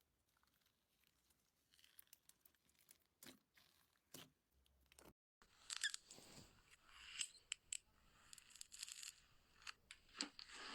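Slime being squeezed and poked, giving crisp crackles and clicks. They are sparse at first and become denser and louder after a short gap about five seconds in.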